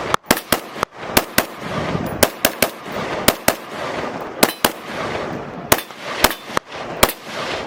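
Steyr AUG rifle fired rapidly in semi-automatic, about twenty really loud shots at an uneven pace, some in quick pairs, each followed by a rolling echo.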